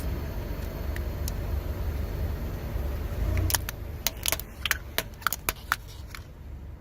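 Car tyre rolling slowly over a brittle object over a low engine rumble, then a quick run of sharp cracks and crunches from about halfway through as the object breaks under the wheel.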